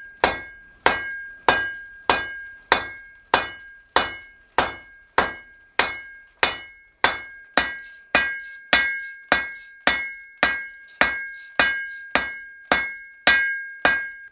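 Blacksmith's hammer striking iron on an anvil in a steady rhythm, about two blows a second, each blow ringing with a clear metallic tone. This is the end of a hasp being drawn out under the hammer.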